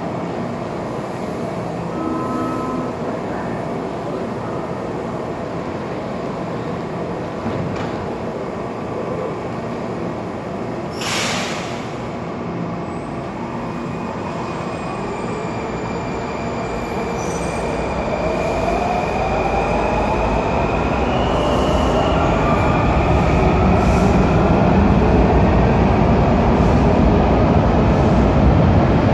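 WMATA 3000-series subway train pulling out of an underground station. A steady rumble first, with a short hiss about eleven seconds in. Then the motor whine rises in pitch and the sound grows louder as the train accelerates away, with a high steady squeal from the wheels on the rails.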